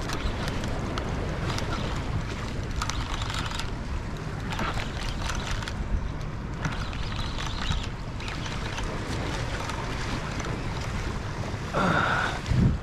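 Wind buffeting the microphone over waves washing against jetty rocks, with short scattered rustles and a louder brief sound near the end.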